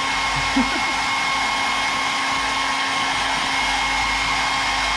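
Handheld hair dryer running steadily: a constant rush of blown air with a steady motor whine on top.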